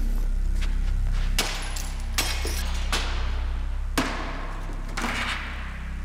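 Panes of textured glass in a scaffold frame being smashed: about five hard strikes, each followed by breaking glass that rings and tails away, over a low steady musical drone.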